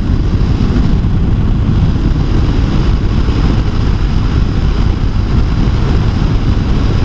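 Steady wind and riding noise from a BMW R1200RS motorcycle underway, picked up by a helmet microphone.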